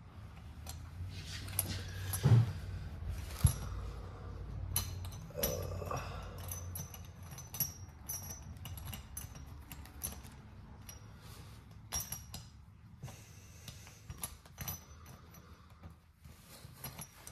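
Small metal parts clicking and clinking against a Yamaha TTR 125's aluminium cylinder head as its rocker arms and shafts are worked loose by hand, with scattered taps throughout and the sharpest knocks about two and a half and three and a half seconds in.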